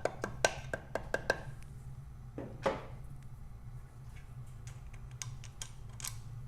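Rapid, even metallic clicking, about six clicks a second, typical of a ratchet spanner turning a nut, which stops about a second and a half in. Then comes a short scrape and a few light metal taps, over a steady low hum.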